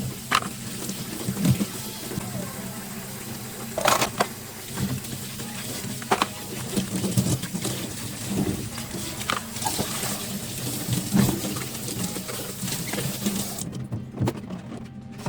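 Kitchen washing-up sounds: dishes and utensils handled and set down at a sink, giving sharp clinks and knocks every second or two over a steady low hum.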